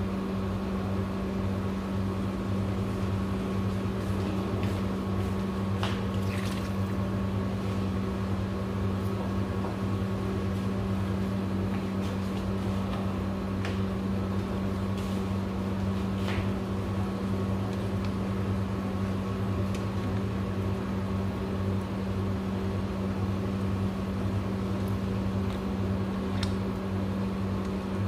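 A steady low machine hum with an unchanging pitch, with a few faint light clicks on top.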